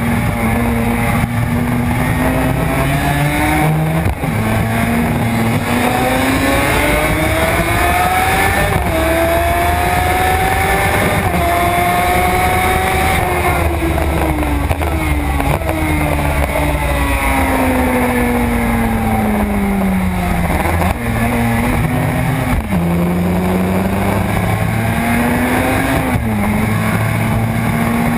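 Suzuki RG500's two-stroke square-four engine at racing speed: the revs climb with short drops at each upshift, fall slowly for several seconds midway, then climb through the gears again near the end.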